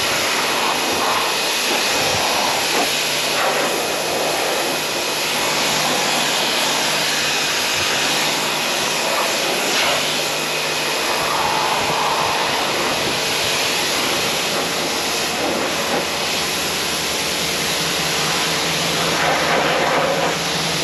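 Pressure washer running, a steady hiss of spray over a steady motor hum.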